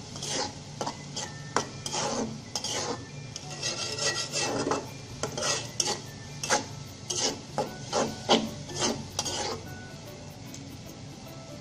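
Metal spatula stirring red lentils through a thick tomato-onion masala, scraping across the bottom of an aluminium wok in a quick run of repeated strokes. The stirring stops about nine and a half seconds in.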